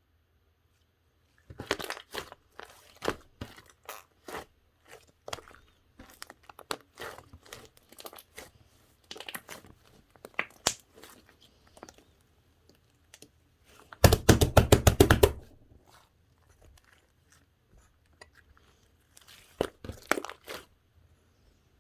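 Slime being squished and pressed by hand, giving irregular sharp crackles and pops, with a dense run of rapid pops lasting over a second about two-thirds of the way through.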